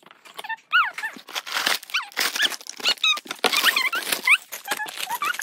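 Cardboard and plastic rustling and crinkling as a Lego box is torn open and the bags of bricks are pulled out. Many short, high, squeaky rising-and-falling whines sound through it.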